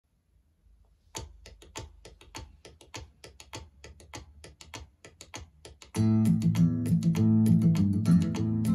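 Music: after a moment of silence, a light ticking beat at about five ticks a second. About six seconds in, a much louder full arrangement with guitar and bass comes in.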